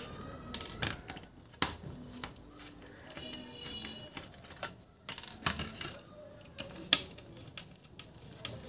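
Irregular metal clicks and taps of a screwdriver working the back-cover screws out of a round LED panel light, with the metal panel being handled. The clicks come in small clusters, the loudest about seven seconds in.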